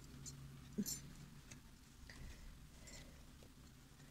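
A few faint, scattered clicks of circular knitting needles handling yarn as stitches are picked up along a sweater's neckline.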